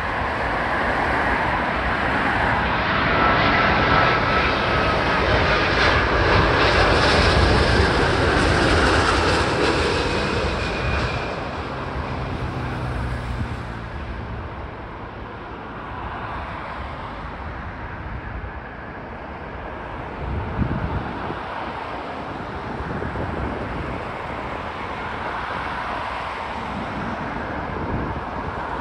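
Airbus A350-1000's Rolls-Royce Trent XWB jet engines on final approach, passing low overhead. The engine noise swells to its loudest about eight seconds in, with a thin whine that falls slightly in pitch, then fades to a lower rumble as the airliner moves away down the runway.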